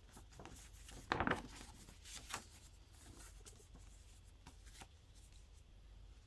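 Hands handling a SteelBook and its packaging: rubbing and scraping with a few light clicks, loudest in a brief scrape about a second in.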